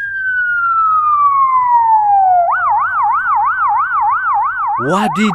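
Police-style electronic siren: one long falling wail, then switching about halfway to a rapid warble, about three rises and falls a second.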